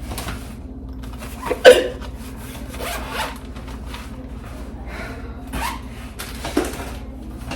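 A woman hiccupping twice, one loud hiccup about two seconds in and a softer one near the end, amid rustling and zipping sounds.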